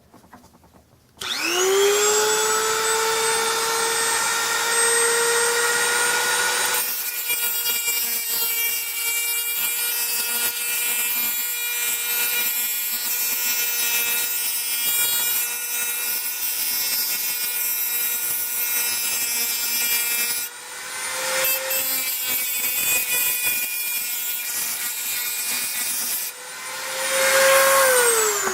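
High-speed rotary tool spinning up to a steady high whine, then grinding a flat onto the metal shank of a homemade tool, with a short break and a louder pass near the end before the motor spins down.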